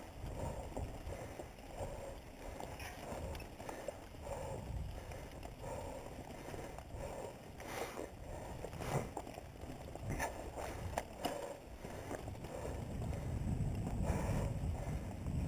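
Mountain bike riding over a dirt trail: wind on the microphone and tyres rumbling on the dirt, with the bike rattling and knocking over bumps, a cluster of sharp knocks past the middle.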